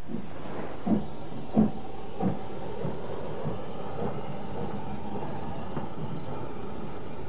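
Steam locomotive working, its exhaust beats coming about every 0.6 seconds, strongest in the first couple of seconds and then settling into a fainter, steady rhythm.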